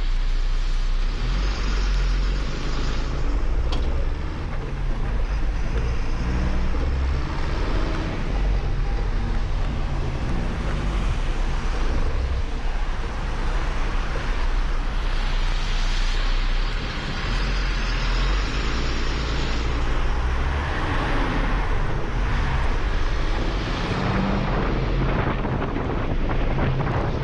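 Diesel engine of a MAN LE280B 4x4 truck pulling away and driving on, its note rising and falling as it gathers speed, heard from a roof-mounted camera with wind buffeting the microphone and tyres hissing on the wet road.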